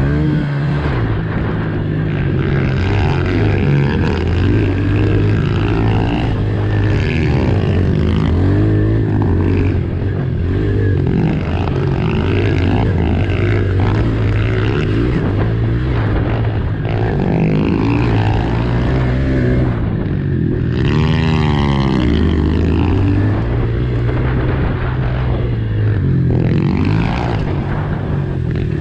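Small pit bike engines revving up and down repeatedly, with pitch rising and falling throughout.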